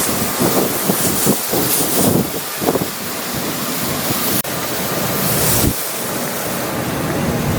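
Strong gale wind buffeting the microphone: a loud rushing noise that swells and eases in gusts, with a brief sudden dropout about four and a half seconds in.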